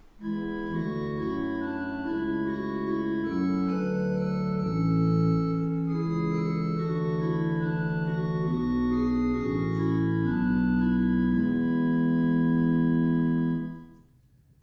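Organ playing a slow run of held chords that change every second or two, fading out near the end.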